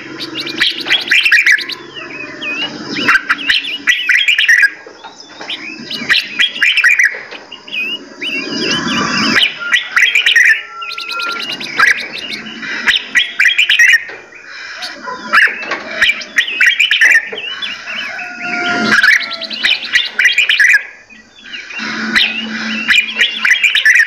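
Several songbirds chirping and singing at once, with quick chirps and whistled phrases overlapping in busy bursts and short lulls between them.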